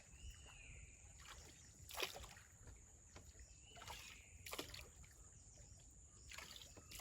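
Faint paddle strokes of a small boat in floodwater: a few soft splashes a second or two apart.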